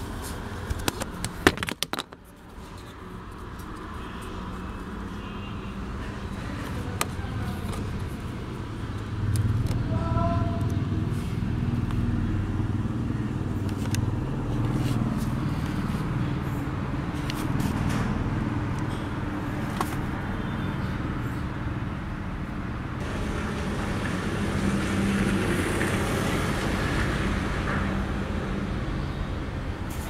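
A few sharp plastic clicks as an OBD2 reader is pushed into the car's diagnostic port, then a steady low rumble that grows louder about a third of the way through.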